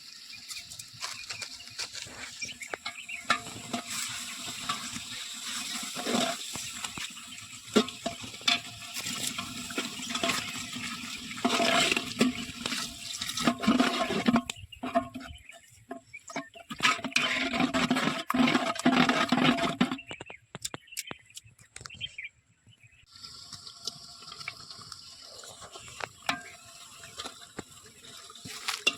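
Water sloshing and splashing, uneven, with a short lull about two-thirds of the way through.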